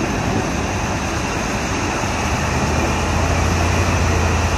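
Diesel engine of a heavy multi-axle truck crane running under load as it creeps up onto a lowboy trailer: a steady low drone that grows louder in the second half.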